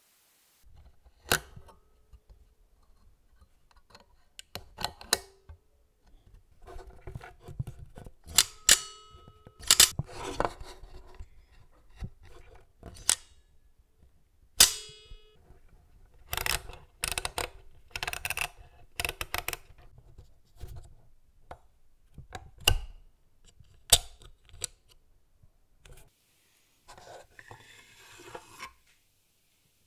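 Shutter lever of a Kodak Baby Brownie box camera being worked over and over: sharp clicks, some with a short metallic ring, mixed with knocks from handling the camera. Near the end, a rasping as the film winding knob on top is turned.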